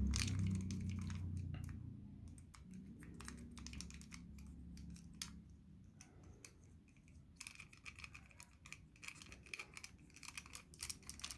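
Cotton bud rubbing and scraping in the gaps of a plastic toy, with irregular light clicks and taps of the plastic being handled. The clicks are sparse at first and come thick and fast for a few seconds near the end, while a low hum fades out during the first two seconds.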